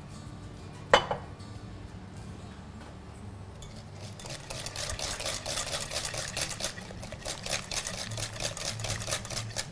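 A sharp knock about a second in; then, a few seconds in, a wire whisk starts beating a yogurt-and-oil marinade in a bowl, a rapid run of clicking and scraping against the bowl.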